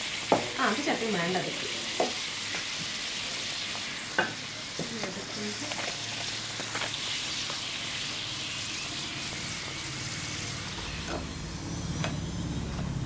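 Poori deep-frying in hot oil in an iron kadai: a steady sizzle, with a steel skimmer clinking against the pan a few times in the first seconds and once more around four seconds in as it presses the poori down to make it puff. A low hum comes in near the end.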